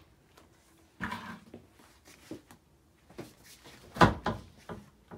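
Scattered handling knocks and clicks in a small kitchen, with a short scrape about a second in and the loudest sharp knock about four seconds in.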